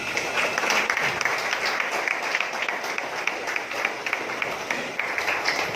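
Audience clapping in applause to welcome a guest: many hands clapping irregularly, steady throughout.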